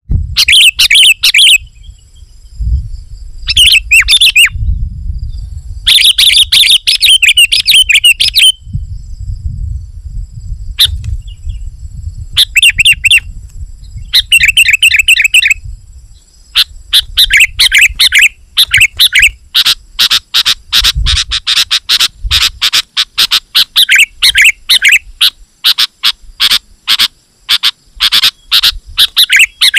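Sooty-headed bulbul (kutilang) singing loudly in bursts of quick, chattering notes, turning to almost unbroken rapid calling from about halfway through.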